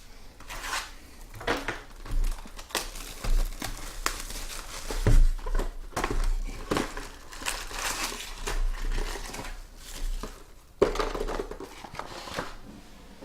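Trading-card packaging and cards being handled: irregular crinkling and rustling of wrappers, with small clicks and taps.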